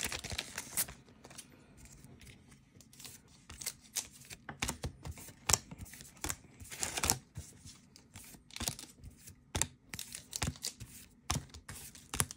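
Handling of a freshly torn foil trading-card booster pack: the wrapper crinkles while the cards are slid out and flicked through one by one, making a string of irregular sharp clicks and swishes.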